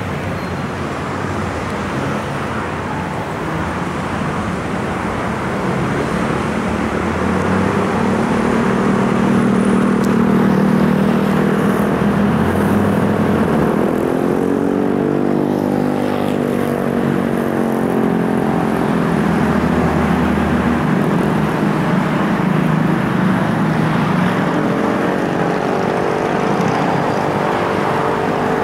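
Road traffic running steadily, with a passing vehicle's engine rising and falling in pitch about halfway through and another near the end.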